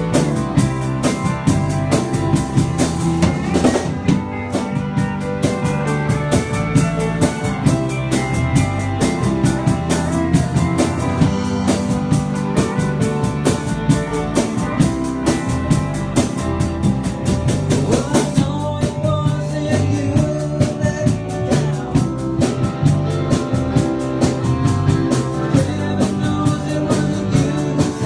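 Live band playing: a pedal steel guitar with sliding notes over a drum kit keeping a steady beat, with bass and other instruments filling in.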